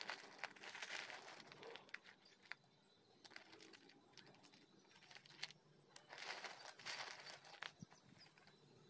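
Dry chunks of grey clay clinking and rustling against each other and a metal plate as a hand stirs through them. It is faint, with a burst at the start and another about six seconds in, and single clicks between.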